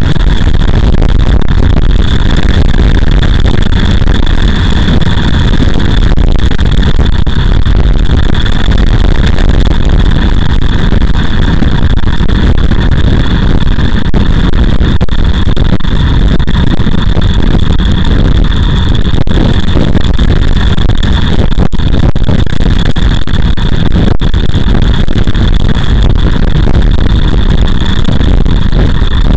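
Riding motorcycle at road speed: a loud, steady rumble of wind buffeting the camera's microphone mixed with engine and road noise.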